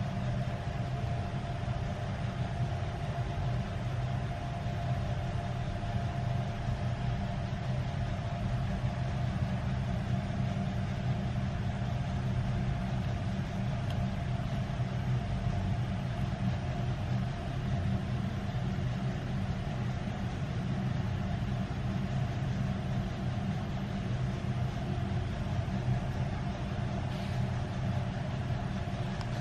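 Steady low background hum and rumble with a faint steady tone above it, unchanging throughout.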